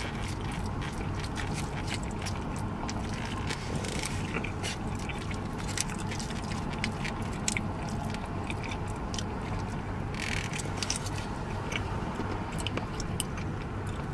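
A man chewing food with wet mouth noises and lip smacks, with scattered small clicks and scrapes of a plastic fork against a foam takeout tray, over the steady low hum of a car cabin.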